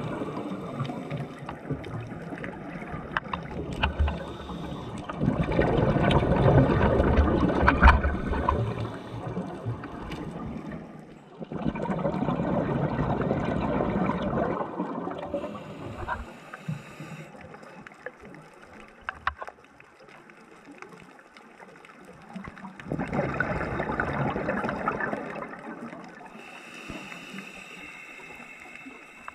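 Scuba diver's breathing heard underwater: rushing, bubbling swells of exhaled air from the regulator, three loud ones a few seconds long, with quieter hissing between them.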